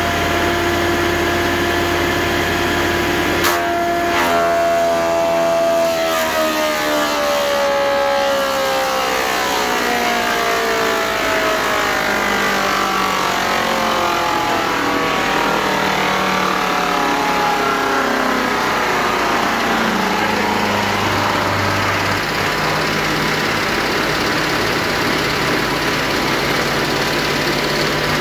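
Wood thickness planer running steadily, then switched off about three and a half seconds in with a click; its motor and cutterhead wind down with a slowly falling whine over the following twenty seconds, over a steady rushing noise that keeps going.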